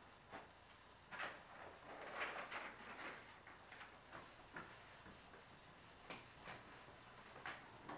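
Cloth rubbing across a whiteboard, erasing marker writing: faint swishing wipes in a run of short strokes.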